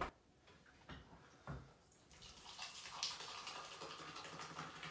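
Fizzy energy drink poured from a can into a glass cup, the liquid splashing and bubbling as it fills, starting about two seconds in after a short knock.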